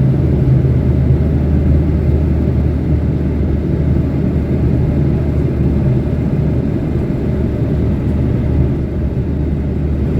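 Coach bus engine running with a steady low rumble.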